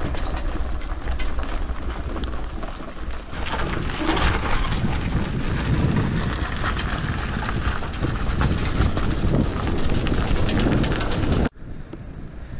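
Wind buffeting the microphone over the rumble and rattle of a rigid-frame gravel bike's 2-inch tyres rolling fast down a road. Near the end it cuts abruptly to a quieter, steadier rush of wind and tyre noise.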